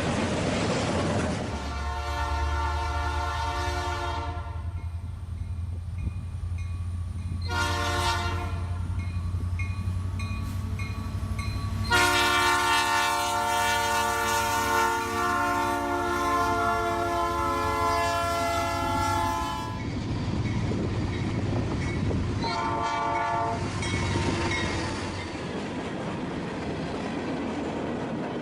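A real locomotive's air horn, a chord of several notes, sounds four times: a blast of about two seconds, a short one, a long blast of nearly eight seconds, then a short one. Underneath runs a steady low engine rumble with rail noise.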